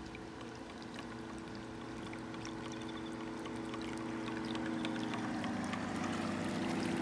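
A 45-year-old German model ship's electric motor hums steadily while water splashes and trickles in its wake, growing louder as the boat comes closer.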